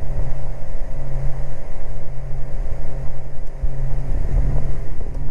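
Beechcraft Baron G58's twin six-cylinder Continental IO-550 engines and propellers running steadily at full takeoff power, heard from inside the cockpit as a constant loud drone.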